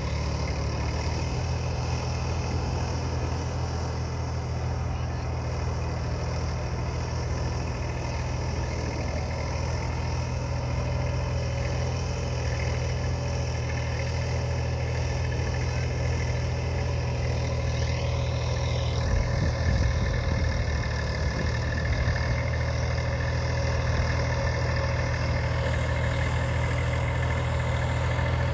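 Massey Ferguson 254 Dynatrack tractor's diesel engine running steadily under load as it drives a rotavator through flooded paddy-field mud.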